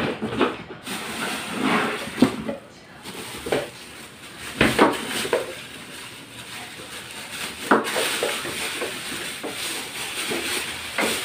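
Unboxing a mixer grinder: a cardboard box being opened and a clear plastic bag rustling and crinkling as the motor base is lifted out and unwrapped, with a few sharp knocks of the packaging and the base against the table.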